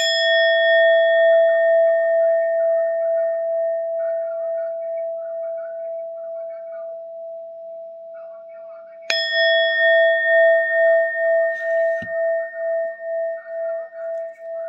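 Metal singing bowl struck twice, about nine seconds apart. Each strike rings on in a long, slowly wavering hum while its brighter overtones fade within a few seconds.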